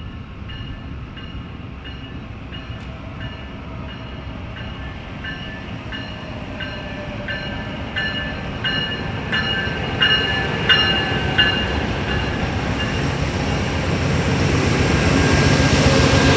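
An Amtrak GE Genesis diesel locomotive's bell ringing as the Southwest Chief pulls into the station, about one and a half strokes a second, growing louder as the locomotive nears and stopping about eleven seconds in. Near the end the rumble of the locomotive and passenger cars passing close by builds and becomes the loudest sound.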